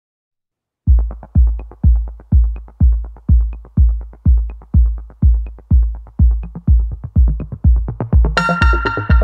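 Electronic background music: after about a second of silence, a steady kick-drum beat starts at about two beats a second, and synthesizer chords join near the end.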